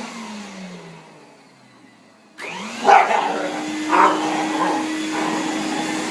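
Vacuum cleaner switched off, its motor whine falling in pitch as it spins down to near quiet; about two and a half seconds in it is switched back on and runs steadily. A dog barks at it, loudest twice, about three and four seconds in.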